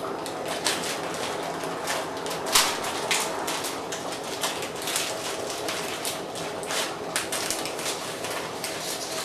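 A pot of water at a rolling boil, bubbling steadily, with irregular sharp clicks and clinks of cookware as dry spaghetti goes in; one louder knock about two and a half seconds in.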